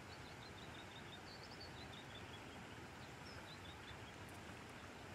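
Faint steady rush of river current, with a small bird giving quick series of short high chirps that stop about four seconds in.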